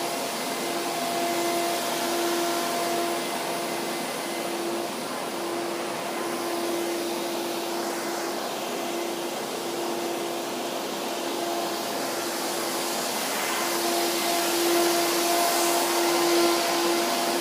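Commercial water-damage drying equipment running together: air movers and dehumidifiers giving a steady rush of blown air with a steady motor hum under it, a little louder near the end.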